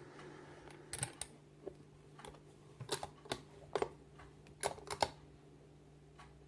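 Brass cylinder lock being handled and turned over: about a dozen small, sharp clicks and taps scattered over four seconds, then quiet.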